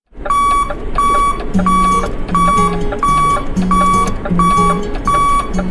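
Electronic music: a short, high beeping note repeating about every 0.7 s over a bass line and a beat, starting just after the beginning.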